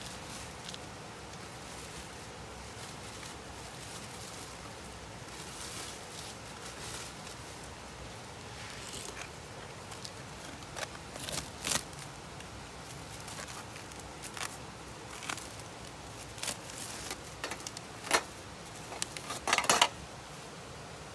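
Steady background hiss with scattered light clicks and ticks, then a short burst of louder metallic clatter near the end as a metal tray is set on the wire grill rack.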